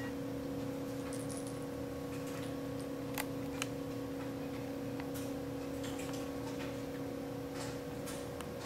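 A steady electrical hum, with a few faint, short ticks scattered through it.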